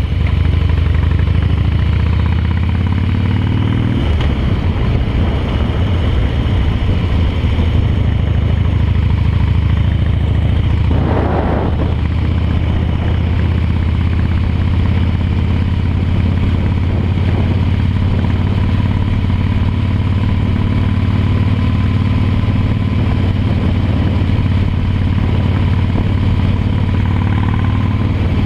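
Harley-Davidson V-twin motorcycle engine running under way, rising in pitch as it accelerates over the first few seconds, changing note at about four seconds, then cruising at a steady pace. A brief burst of noise comes about eleven seconds in.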